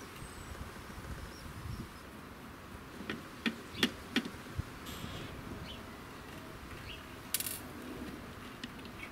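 Small sharp clicks and clinks of a screwdriver and metal hardware on the opened casing of a battery charger. Most come in a quick cluster of about five between three and four and a half seconds in, with a short rattle near seven and a half seconds.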